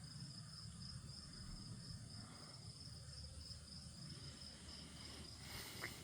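Faint, steady high-pitched trilling of crickets, continuous and finely pulsing, with a low rumble beneath and a small click near the end.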